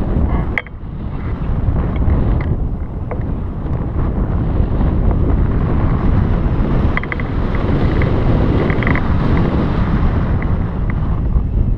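Strong wind buffeting the microphone: a loud, steady, deep rushing that eases briefly about half a second in.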